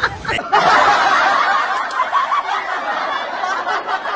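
Many people laughing together, like an audience laugh track, cutting in suddenly about half a second in and carrying on steadily.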